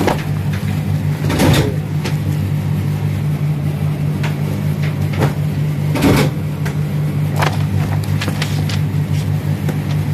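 Printed paper booklets and a cardboard box being handled: rustles and soft knocks, loudest about a second and a half in and again about six seconds in, with a few light clicks between. A steady low hum from an unseen machine runs underneath.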